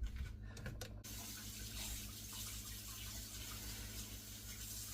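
Kitchen tap turned on and running steadily into a sink, after a few light knocks about a second in.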